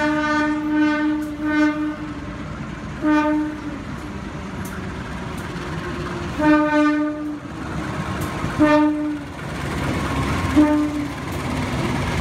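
CC 203 diesel-electric locomotive sounding its horn in a series of blasts, some long and some short, about six or seven in all, as it arrives hauling a passenger train. Under the horn runs the steady rumble of the train rolling past, with wheels clacking over the rail joints.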